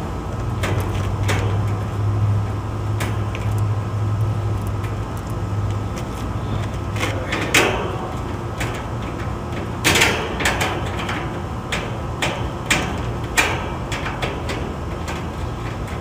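Screwdriver backing screws out of an air-conditioner condenser's sheet-metal top panel: scattered metallic clicks and scrapes over a steady low hum, the hum strongest in the first few seconds.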